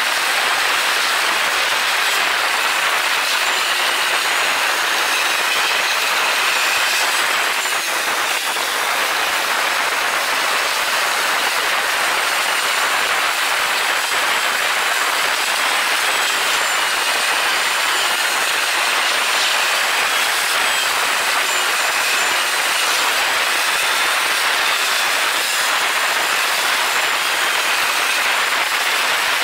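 Suzuki SV400S V-twin motorcycle on the move: steady wind and road noise with a faint, high engine whine that rises and falls.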